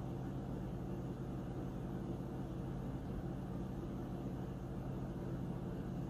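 SOWTECH CM6811 steam espresso machine, switched off, venting its leftover steam pressure through the spout with a steady low rushing hum.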